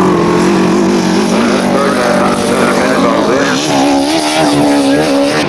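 Several grasstrack racing motorcycle engines running together, their pitch rising and falling as they rev, more unsteadily in the second half.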